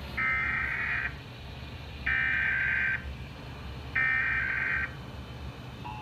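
Emergency Alert System SAME header played through a TV speaker: three bursts of data tones, each about a second long and a second apart, marking the start of a Required Monthly Test. Near the end the steady two-tone EAS attention signal begins.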